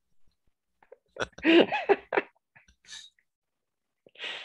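A man laughing: a loud burst of laughter about a second in, then short breathy exhales.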